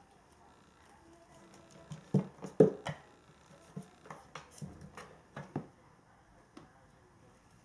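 Irregular thumps and knocks from a Norwegian Forest Cat kitten jumping and batting at a stretchy ribbon toy on a wooden floor, loudest in a cluster about two to three seconds in, then lighter scattered taps.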